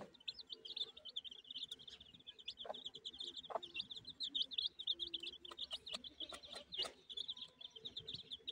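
Young chicks peeping in a steady, rapid run of short high chirps, with a hen clucking low now and then. A few sharp ticks stand out above the peeping.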